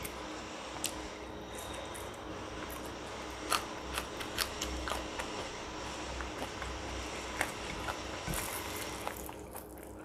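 Close-miked eating by hand: scattered sharp clicks and light crunches from chewing and from fingers breaking apart fried tempeh on a plate, over a steady low hum.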